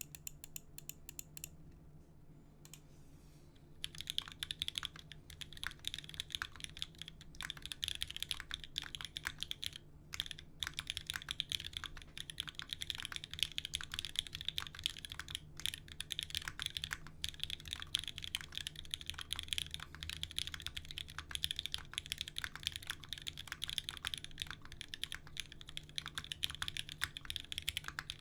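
Typing on a Nice60 mechanical keyboard with lubed Cherry MX Black linear switches, a polypropylene plate, an aluminium case with a brass bottom, and GMK keycaps. A few scattered keystrokes come first, then steady, fast typing from about four seconds in.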